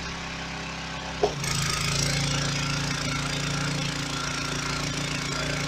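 Home-built pressure washer's engine running steadily; about a second in there is a brief sharp sound, then the engine note changes and gets louder and the hiss of high-pressure water spray sets in as the surface cleaner is run over the concrete.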